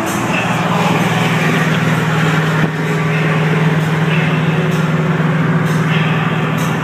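Steady highway driving noise heard inside a pickup truck's cab: engine and tyres droning with a constant low hum.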